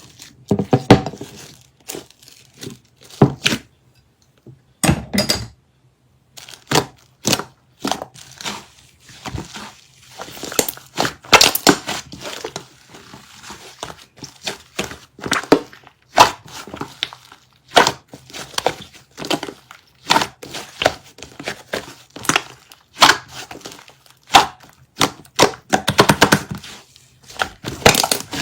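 A sticky white slime being squished and pulled by hand, giving an irregular run of sharp clicks and pops.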